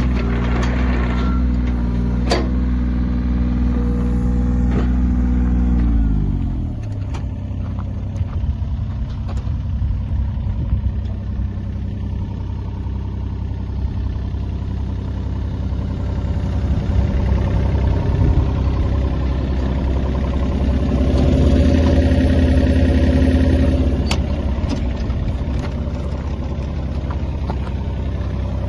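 Deere 35G mini excavator's diesel engine running at high speed, then dropping in pitch to a lower speed about six seconds in. It keeps running at the lower speed, with a few sharp clunks, and grows louder for a few seconds near the end.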